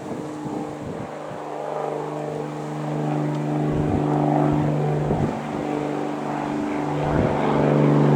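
Aircraft engines sounding as a steady drone with several pitched tones, growing louder as the aircraft comes closer. Gusts of wind buffet the microphone a few times.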